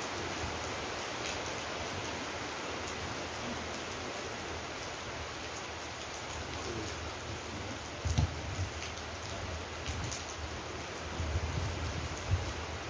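Steady hiss of rain falling outdoors, with a few dull low thumps about eight seconds in and again near the end.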